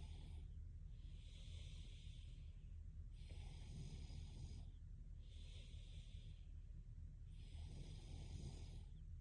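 Faint, slow breathing of a sleeping woman: each inhale and exhale is a soft hiss about a second long, and every other breath has a rougher, lower edge, with a full breath about every four seconds. A steady low hum lies underneath.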